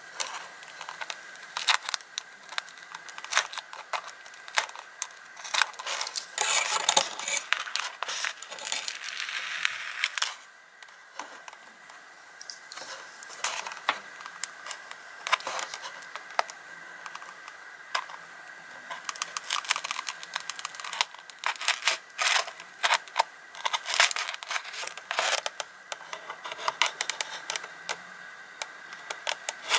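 Clear tape being picked and peeled off a foam RC plane fuselage with metal tweezers: scratchy scrapes and small clicks, with a longer stretch of rustling, tearing noise about six to ten seconds in. A faint steady high tone runs underneath.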